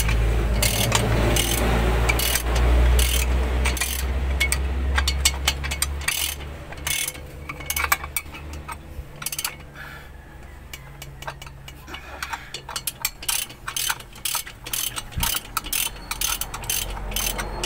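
Socket ratchet wrench clicking in quick runs of strokes as a bolt is turned on the engine. A low rumble fills the first six seconds or so.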